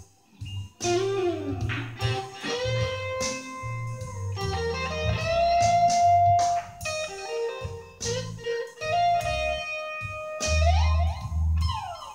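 Guitar playing slow blues lead lines in C, single notes with bent notes sliding up and down, over low bass notes in a steady rhythm.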